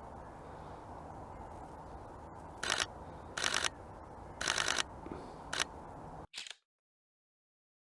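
Camera shutter firing in four short bursts of rapid clicks, a couple of seconds in, over faint outdoor background noise. The sound then cuts to dead silence near the end.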